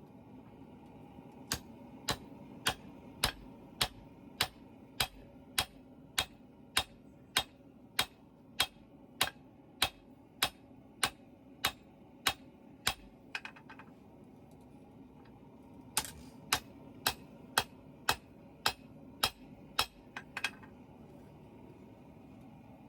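Hammer blows on hot steel being forged, struck in an even rhythm a bit under two a second. A run of about twenty blows, a pause of a few seconds, then about ten more. A steady hum runs underneath.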